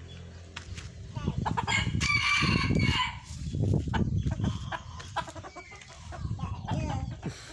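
Red junglefowl rooster crowing once, a short crow of about a second and a half, starting a couple of seconds in, with a shorter call near the end. Low rumbling noise runs underneath.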